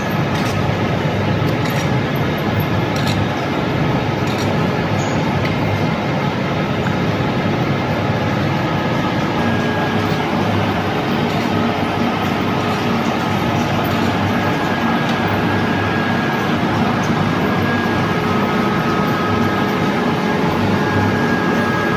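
Wood pellet production line machinery running steadily: a loud, even mechanical rumble with a few faint steady whining tones above it.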